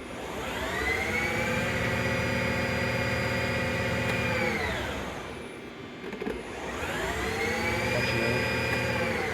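Spindle drive of a 2006 Gildemeister NEF 320 CNC lathe spinning up and down twice. Each time the whine rises in pitch for about a second, holds steady for about three seconds, then falls away as the spindle stops.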